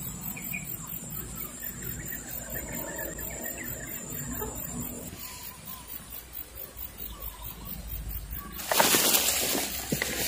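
Quiet open-air swamp ambience with faint bird calls, then a short burst of rustling noise about nine seconds in.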